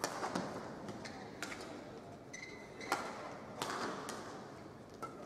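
Badminton rackets striking a shuttlecock in a rally, several sharp hits a second or so apart over the hum of an indoor hall, with a brief shoe squeak on the court floor midway.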